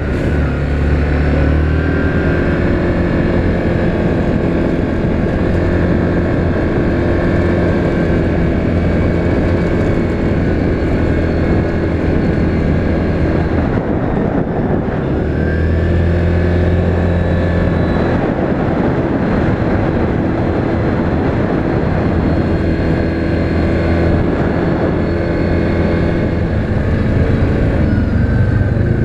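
2019 Yamaha Grizzly 700 ATV's single-cylinder engine running under way on a trail. Its note eases off about twelve seconds in and climbs again a few seconds later.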